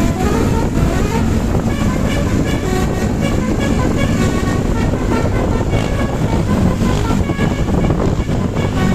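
A bus's telolet basuri melodic air horn playing a tune of stepped notes, over a loud, steady low rumble.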